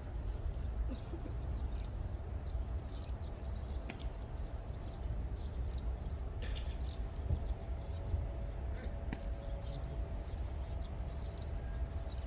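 Steady outdoor background noise with a low rumble, as of wind on the microphone, a few faint high chirps, and several brief sharp knocks.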